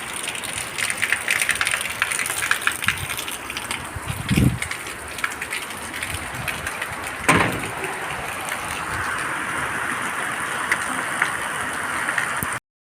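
Heavy rain falling: a steady hiss with fine patter of drops. A low thump comes about four seconds in and a sharp knock about seven seconds in.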